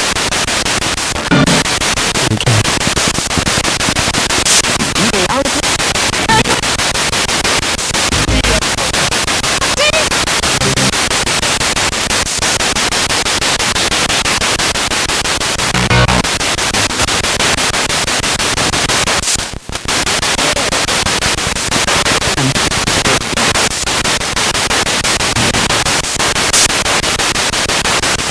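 Spirit box radio sweeping rapidly across stations: steady loud static, chopped many times a second by the sweep, with brief fragments of voices and tones breaking through. A short drop-out comes about two-thirds of the way through.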